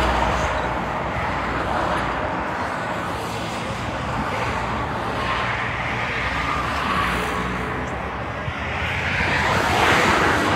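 Road traffic noise: a steady rumble of engines and tyres that swells twice, about halfway through and near the end.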